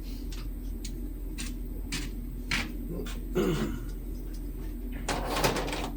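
Sharp metallic clicks about every half second from hand tools working the trailer's U-bolt nuts, then a short clatter near the end, over a steady low hum.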